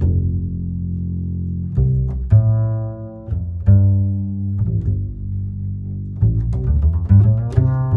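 Background music carried by low string notes, each struck and left to ring, with a quicker run of notes from about six seconds in.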